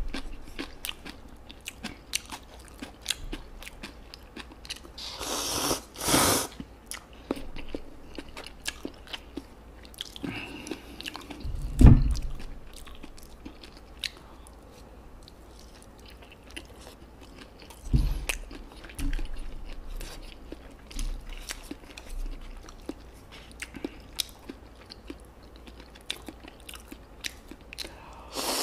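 Close-miked eating: wet chewing and crunching of kimchi, Spam and instant noodles, with many small mouth clicks. There are a couple of longer slurps, one about five seconds in and one starting near the end, and two low thumps about 12 and 18 seconds in.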